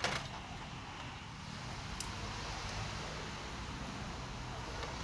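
Snap ring pliers working the snap ring that holds an A/C compressor clutch magnet, giving a single sharp click about two seconds in over a steady hiss.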